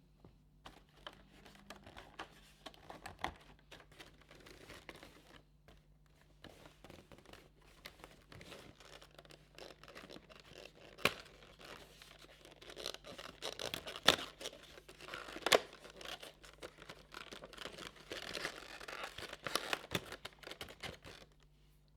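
Cardboard and paper packaging being torn open and handled, with crinkling and scratching and a few sharp taps, the loudest about halfway through.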